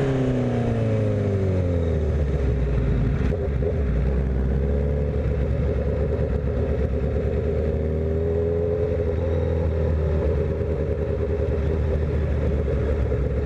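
Honda CBR1000RR Fireblade's inline-four engine with a Yoshimura exhaust, its note falling over the first couple of seconds as the bike slows. It then runs steadily at low revs while cruising, with wind and road noise.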